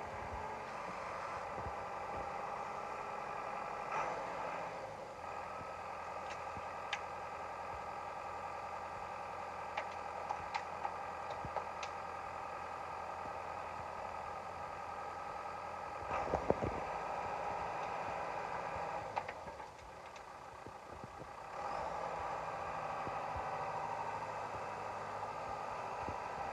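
An engine running steadily, with a few sharp clicks and clatters over it.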